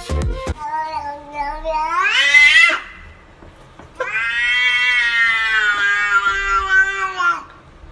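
Domestic cat giving two long, drawn-out meows that sound like "whyyy": the first rises steeply in pitch at its end, the second is held for about three and a half seconds and slowly drops.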